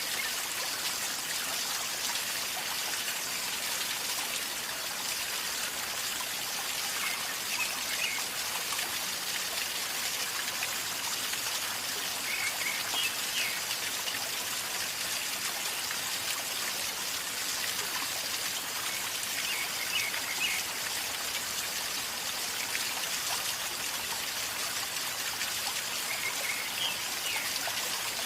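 River flowing calmly over stones, a steady gurgling rush of water. A bird's short call of a few quick high notes comes through about five times.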